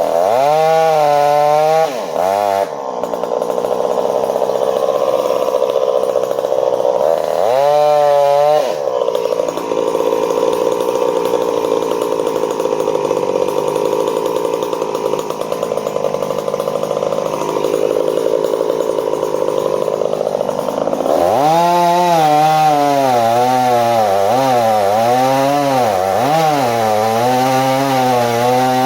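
Two-stroke gas chainsaw revving up and down, then cutting into wood with the engine held steady under load for about twelve seconds, then revving up and down repeatedly toward the end.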